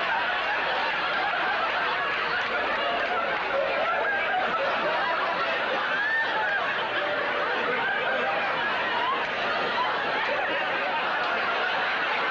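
A studio audience laughing hard and without a break, with the cast laughing along.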